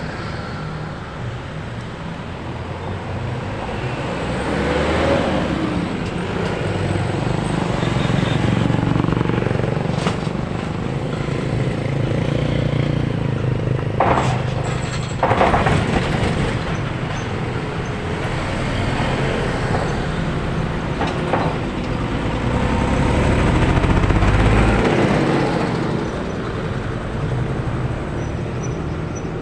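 Road traffic passing close by: cars, motorcycles and an Isuzu diesel box truck, engine noise swelling and fading as each vehicle goes by. About halfway through, as the truck passes, there are two sharp noises.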